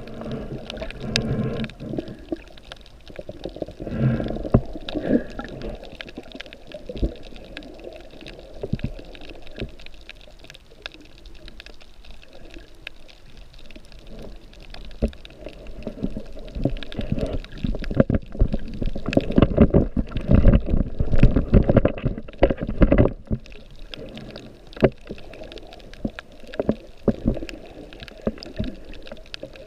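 Underwater water noise heard through a camera's waterproof housing: a muffled low rumble and sloshing that surges now and then, loudest from about 18 to 23 seconds in, with scattered sharp clicks throughout.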